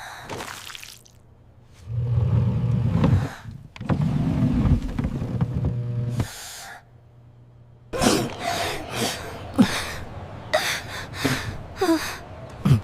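Two low rumbles, then a run of short gasps and squeaky cries.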